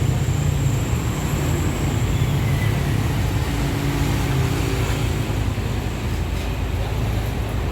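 A vehicle engine running with a steady low rumble, amid road traffic noise.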